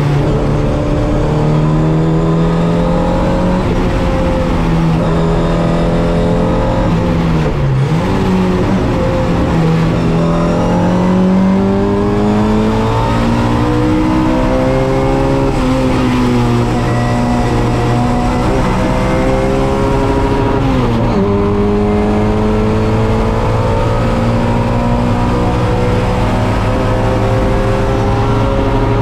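MG Midget race car's four-cylinder engine running hard on track, its pitch climbing in long ramps as it pulls through the gears. The revs drop sharply twice, about eight seconds in and again about twenty-one seconds in, then climb again.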